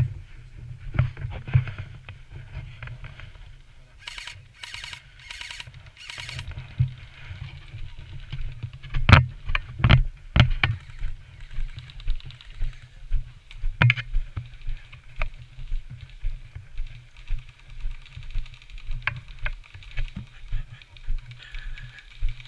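Walking footsteps and gear rubbing on a body-worn camera, as a steady run of low thuds about twice a second. About four seconds in come four short bursts of rapid high clicking, and a few sharp cracks follow in the middle.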